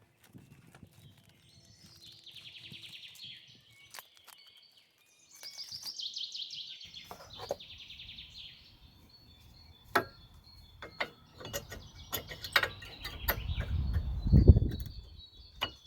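Birds singing in quick trills, in several spells, over scattered sharp clicks and knocks of work. A loud, low thud comes about fourteen seconds in.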